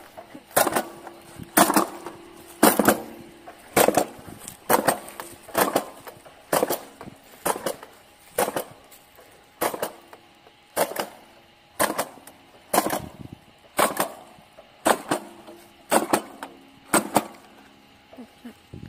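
Manual jab planter used as a corn fertilizer applicator, stabbed into the soil stroke after stroke with a sharp clack about once a second. Each clack is the jaw snapping open as the tool is lifted, releasing a dose of fertilizer into the ground.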